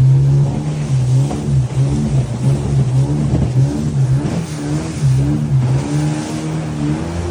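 Boat's outboard motor running hard through rapids, its pitch dipping and climbing back again and again as the throttle is worked.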